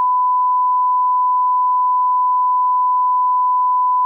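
Steady, loud 1 kHz test tone, the line-up tone that runs with SMPTE colour bars as an audio level reference.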